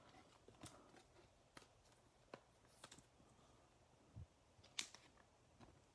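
Near silence broken by faint, scattered clicks and ticks of trading cards being handled and flipped, about half a dozen in all, the loudest a little before the end.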